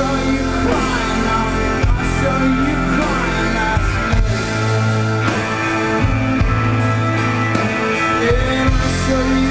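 Live band playing an instrumental passage: electric guitar, keyboard, bowed cello and drums, with held notes and sliding lines over a steady beat.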